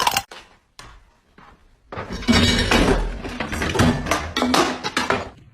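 A sharp knock, then after a short pause about three seconds of loud crashing and clattering, like things falling and breaking.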